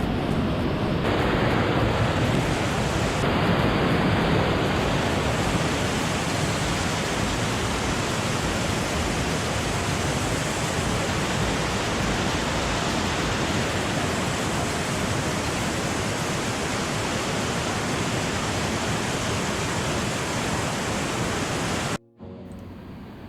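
Small waterfall pouring down close by: a steady, loud rush of falling water that cuts off suddenly near the end.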